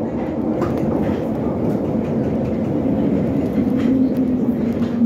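London Underground Bakerloo line 1972 Stock tube train running, heard from inside the carriage: a steady, loud rumble with a low hum and a few faint ticks from the wheels on the rails.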